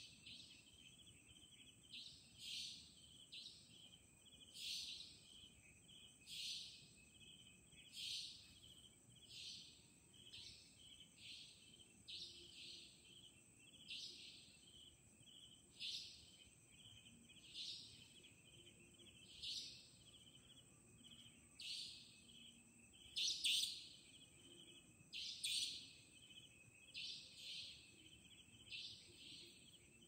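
Savanna nightjar calling: a short, harsh, high call repeated about every one and a half to two seconds, over a steady high insect buzz and faint regular chirping.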